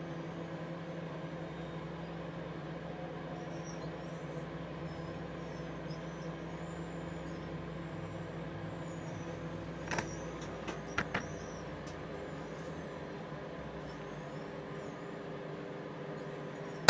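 Microwave oven running with light bulbs inside: a steady electrical hum from the oven, with faint high squeals and chirps from the plasma glowing in the bulbs. A few sharp snaps about ten to eleven seconds in.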